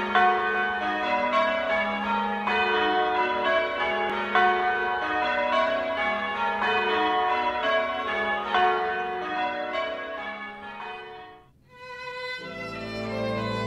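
Church bells change ringing, a steady run of overlapping bell strokes that fades out near the end. A short gap follows, then slow instrumental music with long held notes begins.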